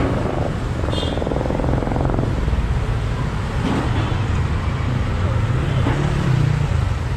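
Steady road traffic: engines of passing vehicles running with a continuous low rumble, and a brief high-pitched tone about a second in.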